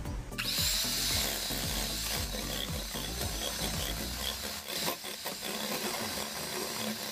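Electric hand mixer running, its beaters whisking raw eggs in a ceramic bowl; it starts about half a second in.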